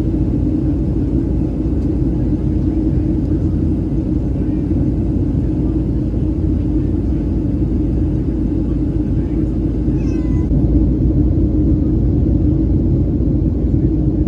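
Boeing 737-700 cabin noise in the climb: the steady rumble of the CFM56-7B engines and rushing air, heard from a window seat behind the wing. A brief, faint wavering high-pitched sound rises above it about ten seconds in.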